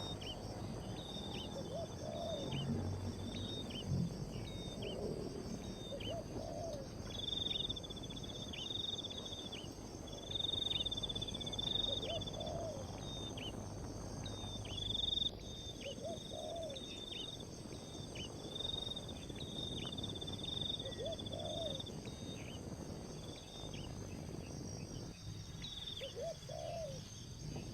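Crickets and other insects calling: a steady high pulsing trill that comes and goes in stretches, over a continuous high buzz. A short low call repeats every few seconds.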